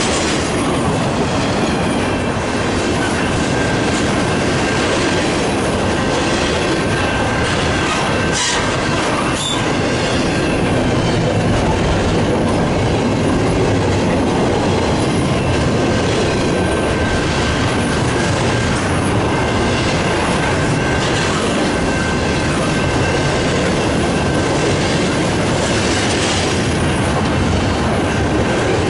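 Canadian National double-stack intermodal train rolling past at close range: a steady loud rumble and rattle of the well cars and wheels, with a few sharp clacks and a thin steady squeal of wheels against the rail.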